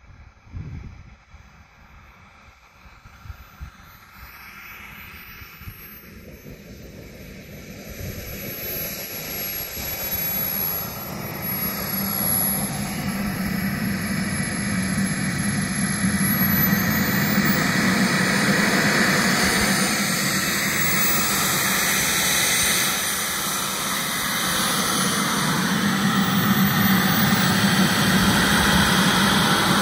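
Twin KingTech K-85 model jet turbines running, faint at first and growing much louder over the first half as the model A-10 comes closer, with a high turbine whistle that climbs in pitch a little past halfway.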